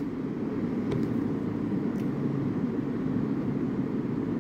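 Steady low rumbling background noise with no clear tone, and two faint ticks about one and two seconds in.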